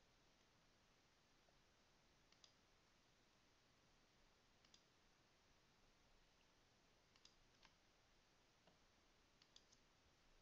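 Faint computer mouse clicks, about every two to three seconds, some in quick pairs, over a faint steady hiss.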